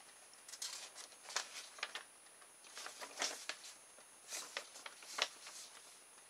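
Paper instruction booklet rustling as its pages are handled, turned and unfolded, in a series of short, faint rustles and crinkles.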